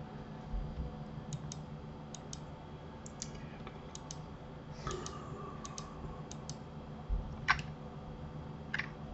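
Scattered clicks of a computer mouse and keyboard, several in quick pairs, over a faint steady low hum.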